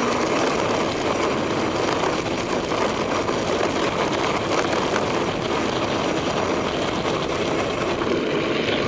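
Mountain bike riding noise picked up by a bike-mounted camera: knobby tyres rolling over a rough surface, with small rattles and clicks and wind on the microphone, a steady rushing noise.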